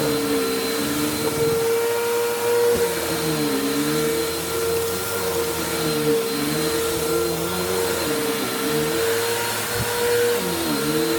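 Bissell vacuum cleaner running, with a steady motor whine and a lower tone that dips and recovers in pitch every second or so.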